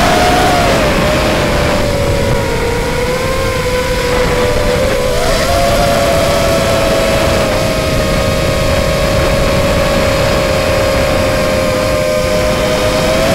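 Brushless motors and propellers of an FPV quadcopter in flight, heard through the onboard camera: a loud, steady motor whine over a rushing hiss. The pitch sags a little over the first few seconds, rises about five seconds in as the throttle comes up, then holds steady.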